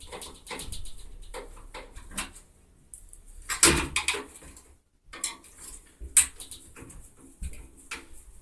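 Clicks and metallic clatter of hand tools and loose parts as a washing machine is taken apart, with a louder rattle about three and a half seconds in and a sharp knock about six seconds in.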